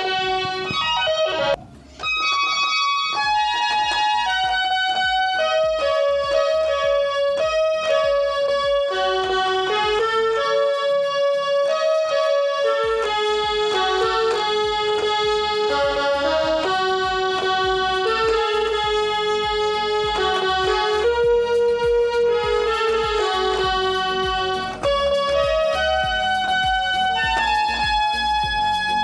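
A 37-key toy electronic keyboard playing a simple tune in a piano-like voice, one note at a time, with a short break about two seconds in.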